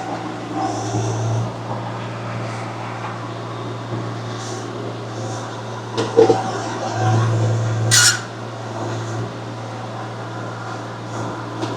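Engine of a small earthmoving machine running steadily while it works a stony road, with a knock about six seconds in and a short harsh scrape near eight seconds.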